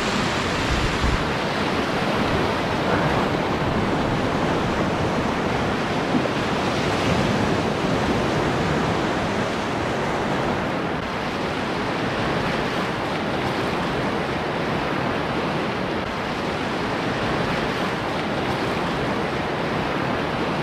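Steady rushing of a class II whitewater rapid in high spring-flood water, heard from a canoe in the middle of the waves.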